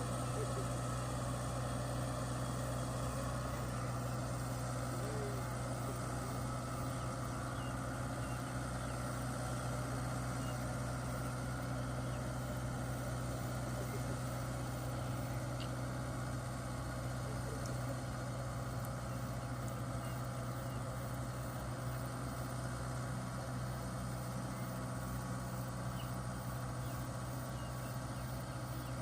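Kubota rice combine harvester's diesel engine running steadily, a constant low drone with no change in pace.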